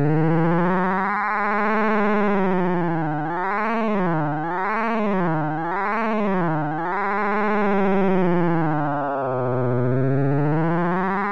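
Synthesized tone made by polygon vertex rotation synthesis (POVROS) in the Rotatosound app: the waveform is traced from the vertices of a rotating 3D wireframe shape, so the tone is buzzy and rich in overtones. Its pitch and timbre slide up and down in smooth waves as the shape turns, swinging faster and deeper through the middle.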